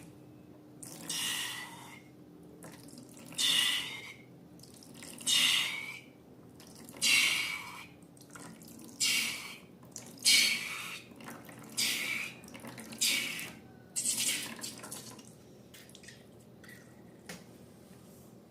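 Wet, sticky squelches of slime being worked, about ten of them. They come every couple of seconds at first and more quickly later, then stop a few seconds before the end.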